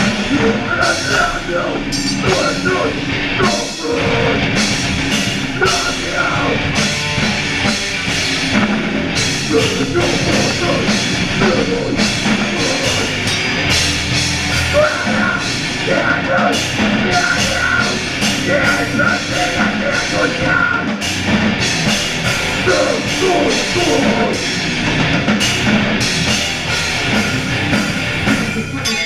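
Metalcore band playing live: distorted electric guitars and a drum kit, with a vocalist on the microphone. Loud and dense, with the drums hitting steadily.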